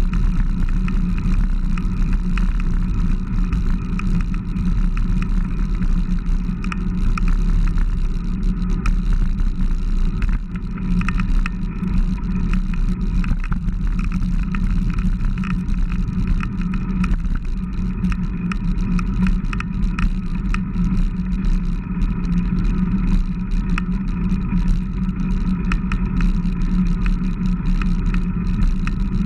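Small motor running steadily as the bike cruises along: a constant low hum with higher whining tones above it, holding an even pitch.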